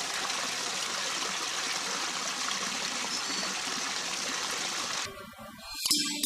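A small stream of water trickling and splashing steadily into a pool, cutting off about five seconds in. Music with percussion starts just before the end.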